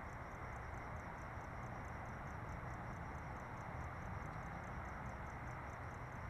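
A cricket chirping at night: a steady, even run of high, short chirps, about six a second, over a constant low hum and background noise.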